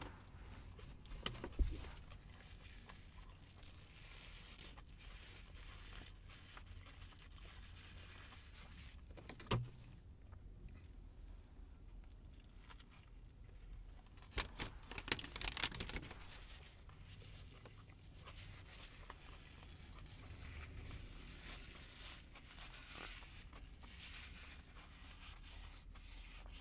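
Quiet sub-sandwich eating sounds: chewing and the rustle and crinkle of the sandwich wrapping, over a low steady hum. A short flurry of crinkling a little past halfway is the loudest part, with a few single clicks before it.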